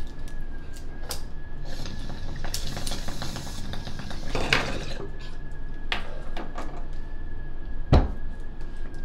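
Glass water bong lit with a lighter and hit. The smoke bubbles through the water in a rapid run of clicks over a hiss, for about a second midway. Scattered glassy clinks and clicks come before and after, and there is a low thump near the end.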